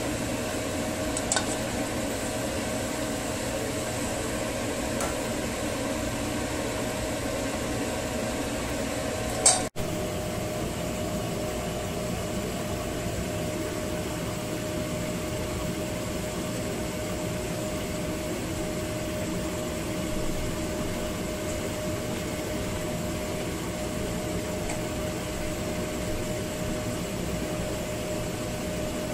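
A steady hum and hiss, like a running appliance or fan, with a small click about a second in and a sharper, louder click near ten seconds.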